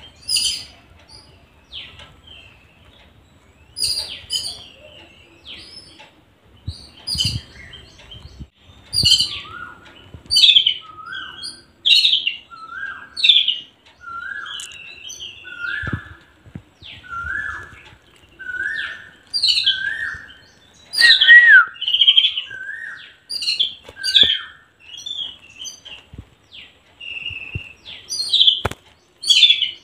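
Sparrows chirping: short, sharp high chirps in clusters every second or two. From about nine seconds in, a lower, rising note also repeats about once a second, then stops a few seconds before the end.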